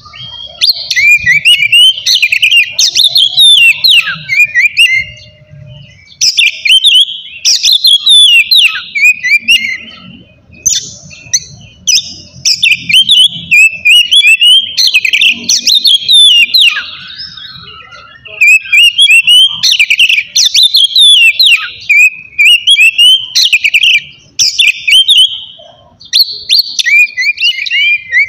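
Oriental magpie-robin (kacer) singing loud, full song: runs of rapid, varied whistles and chattering notes in bursts of a few seconds, with short pauses between them.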